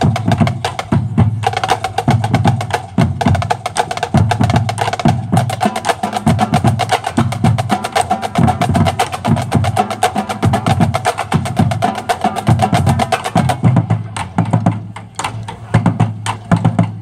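Marching band drumline of snare drums, tenor drums and bass drums playing a fast, dense passage of rapid strokes. About fourteen seconds in it thins out to sparser, separated hits.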